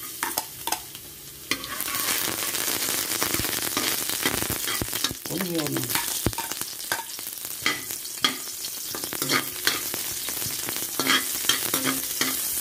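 Minced garlic, then sliced onion, sizzling in hot oil in a metal pan. The sizzle starts suddenly and grows louder about a second and a half in. A spatula clicks and scrapes against the pan throughout as it stirs.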